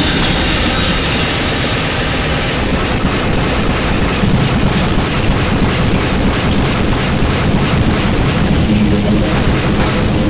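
Harsh noise music: a loud, dense wall of distorted static over a low rumble, its crackle growing thicker partway through, with a low droning hum coming in near the end.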